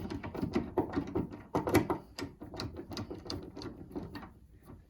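Phillips screwdriver backing a screw out of a door handle's backplate: a quick, irregular run of small metallic clicks and scrapes that thins out near the end as the screw comes free.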